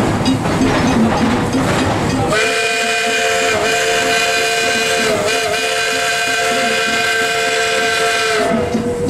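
Chime whistle of a 1920 Baldwin steam locomotive sounding one long blast of about six seconds, several notes at once, starting a couple of seconds in and dipping briefly twice. Before the blast, the train's running noise on the rails.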